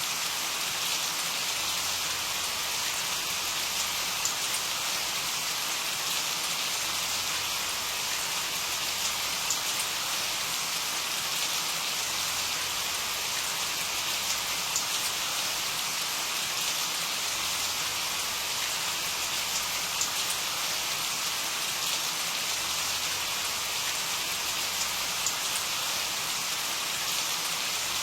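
Steady rain falling, a continuous hiss with scattered small ticks of individual drops landing.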